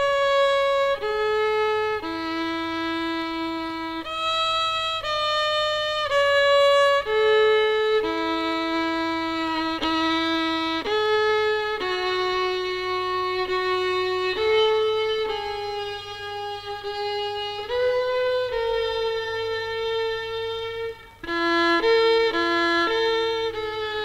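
Solo violin playing a slow melody of long held notes, one at a time. Shortly before the end it drops out for a moment, then goes on with quicker notes that alternate back and forth.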